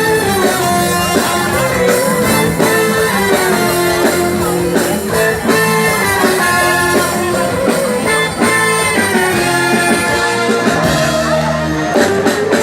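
Live band music, an instrumental passage with held melodic notes over a steady rhythm.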